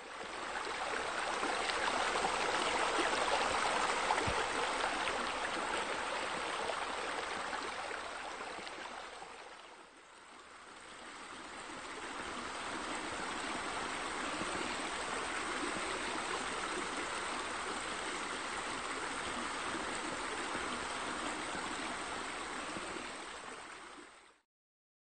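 Steady running, splashing water spilling into a pool. It fades down about ten seconds in, swells back, and stops just before the end.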